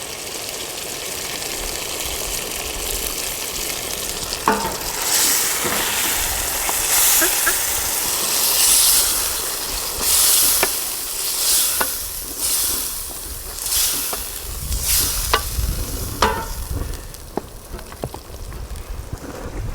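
Chicken karahi sizzling and frying in its wok-like karahi pan. About four seconds in, it is stirred and scraped, with clicks of the utensil on the pan and a fresh surge of sizzle roughly once a second.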